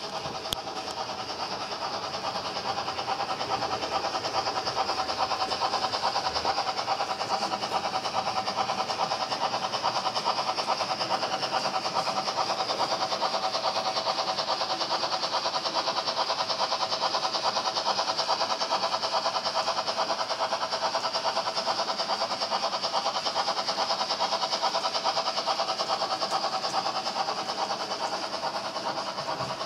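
Model railway train running steadily: the electric motor of a BR 50-type model steam locomotive whirs, with a dense, even rattle of the many small wheels of a long rake of tank wagons on the track.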